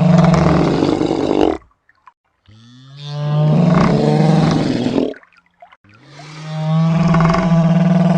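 Shantungosaurus roar sound effect: three long, low-pitched roars separated by short gaps of silence.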